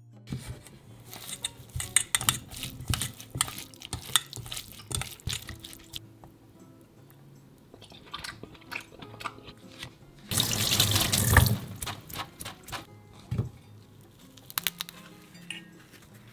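Thin-sliced raw beef being mixed with its seasoning in a stainless steel bowl: quick, wet squishing and clicking. About two-thirds of the way through comes a louder wet rush lasting about a second. Soft background music runs underneath.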